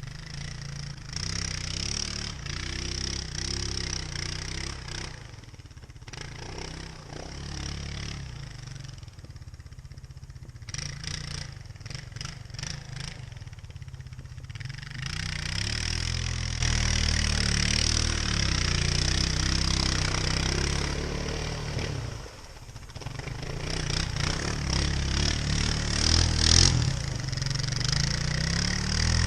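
Four-wheeler (ATV) engine running and revving in surges as the machine works through creek water and snow, with a brief drop in level a little past two-thirds of the way.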